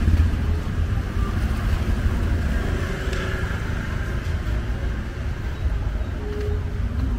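Street traffic close by: a steady low engine rumble from small motor vehicles such as a tuk-tuk and motorbikes.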